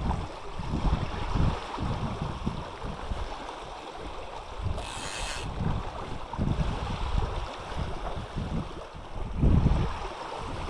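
Wind buffeting the microphone in uneven gusts over the steady rush of a shallow river flowing over stones, with a brief hiss about halfway through.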